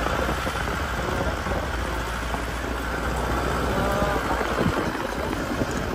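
Vehicle engine running under a steady low rumble, with tyre and road noise jolting over a rough dirt and stone track.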